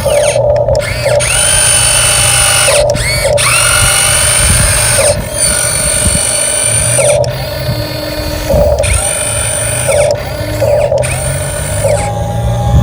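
Electric motor and gearbox of an RC dump truck whining in several bursts, each rising in pitch as the truck speeds up and then holding steady before cutting off.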